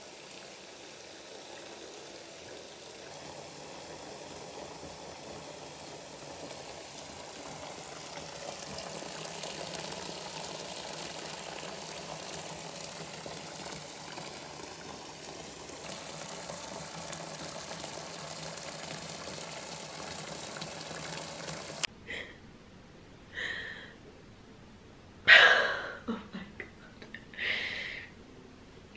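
Tap water pouring into a filling bathtub: a steady rush of splashing water. It cuts off suddenly, and a few short breathy sounds from a person follow, the loudest one near the end.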